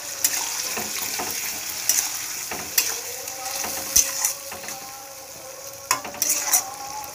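Steel spoon stirring and scraping through a spiced eggplant curry cooking in a metal pan, over a steady sizzle. Sharp clinks of the spoon against the pan come every second or so, bunched together near the end.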